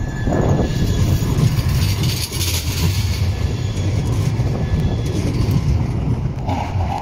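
Siemens Avenio low-floor tram running close by on street rails: a steady low rolling rumble, with a higher hiss rising and fading about two to three seconds in.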